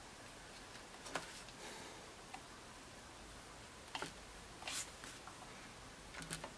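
Hands working modeling clay on a sculpture over a wooden board: a handful of faint, scattered clicks and light taps over a low room hiss.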